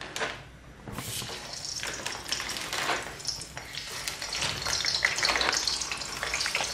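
Frozen potato smileys dropped one by one into hot oil in a kadhai, frying on a high flame. The sizzling starts about a second in and grows louder as more pieces go in.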